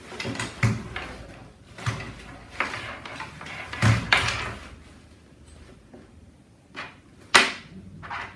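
A nylon sports backpack being handled and set down on a digital kitchen scale to be weighed: fabric rustling and its plastic buckles and straps knocking on the scale and table in a string of short knocks. The sharpest knock comes near the end.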